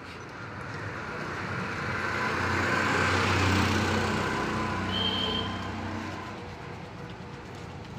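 A motor vehicle passing by on the road, its engine and tyre noise swelling over a couple of seconds and then fading away.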